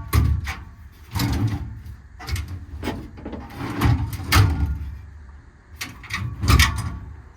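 Slide-out drawers in a truck service-body compartment being pulled out and pushed back in, in about five bouts of sliding rattles ending in knocks.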